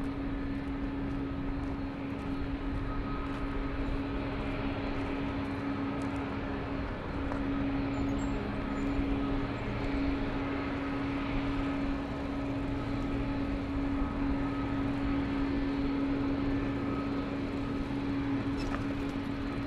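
Boeing 777-200's twin turbofan engines running at taxi power: a steady jet hum with a held tone and a fainter high whine over a broad rush, growing a little louder about a third of the way in as the airliner taxies closer.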